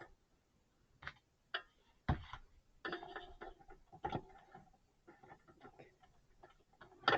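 Hard clicks and knocks of a CPU cooler's plastic push-pin fasteners being pressed and worked against the motherboard, the pins not yet going all the way down to lock. Sharp clicks about a second in, a heavier thump about two seconds in, a cluster of clicks after that and a loud knock at the very end.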